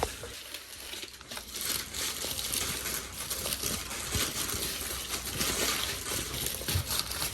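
Paper food wrapper crinkling and rustling as a burger is unwrapped by hand, a dense crackle of small clicks.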